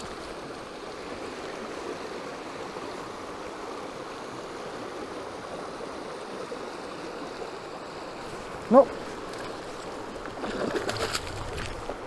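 Steady rush of river current flowing over rocks and through a riffle. About nine seconds in there is a brief rising vocal exclamation, and a few light knocks or clicks follow near the end.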